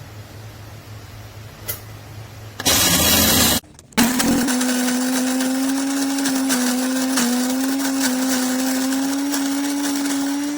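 Cuisinart electric burr coffee grinder running: after a loud burst of noise about three seconds in, its motor starts and runs steadily with a hum and a grinding rasp. It cuts off suddenly at the end.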